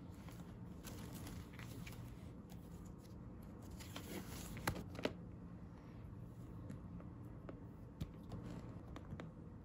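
Pages of a ring-bound paper journal being flipped and handled: soft paper rustling with scattered light clicks, loudest in a rustle with two sharp clicks about halfway through.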